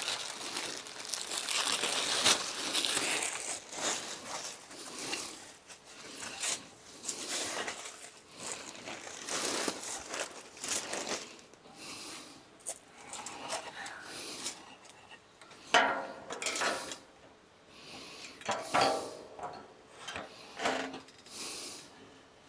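Irregular rustling, crinkling and knocking of plastic bumper parts being handled and fitted, with a few sharp clicks.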